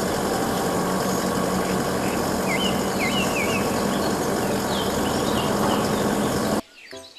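Truck engine running steadily with a low hum while an Isuzu truck-mounted aerial work platform raises its platform, with birds chirping over it. The sound cuts off sharply near the end.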